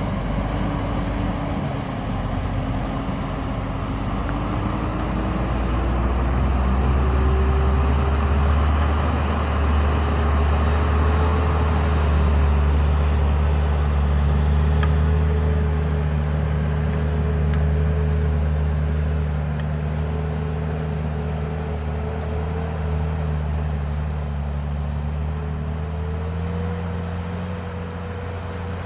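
Tractor engine running steadily under load, its pitch rising over the first several seconds, then holding, and rising a little again near the end.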